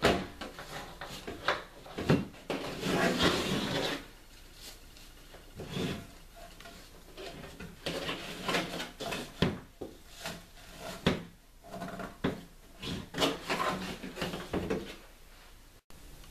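Handling noise of an air rifle and its fabric sling being moved and fitted on a tabletop: irregular knocks, thuds and rubbing, with a denser stretch of scraping about three seconds in and a run of sharp knocks near the end.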